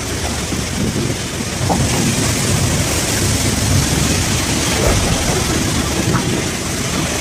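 Steady rumble and rushing noise of a fishing trawler under way: the boat's engine and churning sea water at the stern.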